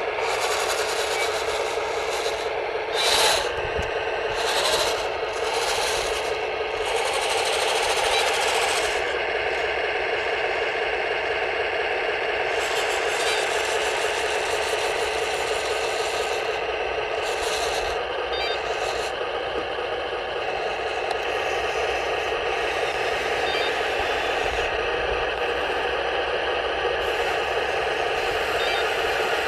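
1:16 RC model tank, a T12 recovery vehicle on a Heng Long M26 Pershing base, driving and turning: steady rattling and scraping of its tracks and drive gear, with two louder clacks about three and five seconds in.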